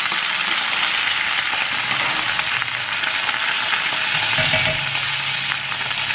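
Curry leaves sizzling and spluttering steadily in hot coconut oil with mustard seeds, urad dal and dried red chillies in a kadai: the tempering stage of a South Indian stir-fry. A wooden spatula stirs them through the oil.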